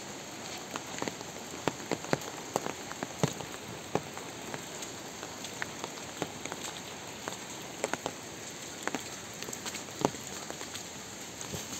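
Steady rain falling on vegetation and wet ground, a constant hiss broken by irregular sharp taps of heavier drops landing close by.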